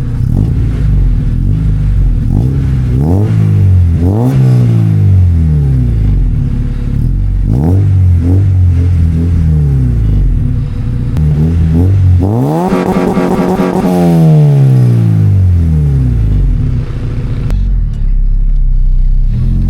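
Honda D15 1.5-litre four-cylinder engine in an EG Civic revved from idle: several quick blips, then a longer rev about twelve seconds in, held high for a moment and falling back, settling to a steady idle near the end.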